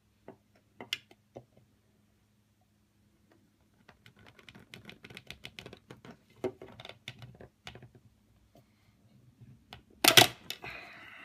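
Metal tongs clicking and scraping against a hard clear plastic tube, with a quick run of rattling clicks from about four to eight seconds in as the tips work at a piece jammed inside. Near the end a loud clatter with a short ring.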